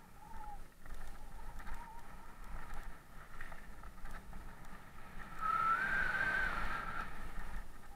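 Mountain bike rolling fast down a loose gravel trail: tyres crunching and rattling over stones, with rumble on the camera microphone. A bit over five seconds in, a high squeal rises slightly and holds for about a second and a half, the loudest sound here.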